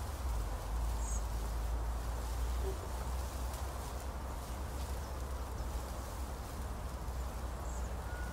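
Quiet open-air ambience: a steady low rumble under a faint distant murmur, with two short high chirps, one about a second in and one near the end.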